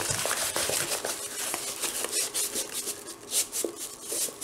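Plastic-covered diamond painting canvas rustling and crinkling as it is rolled up by hand, in quick irregular crackles.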